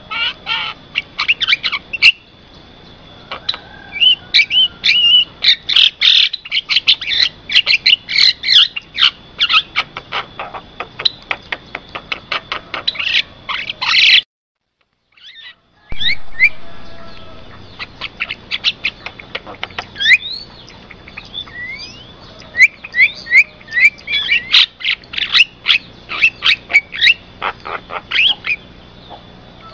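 Javan myna calling: rapid runs of sharp chirps and short whistled glides, with a faint steady high tone underneath. The sound drops out completely for about a second and a half near the middle, then the chattering resumes.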